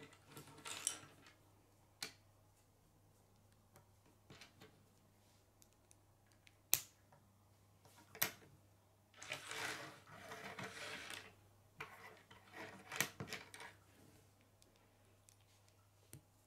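K'nex plastic rods and connectors being handled and snapped together: several sharp clicks, with a few longer stretches of plastic rustling and rattling, the longest in the middle.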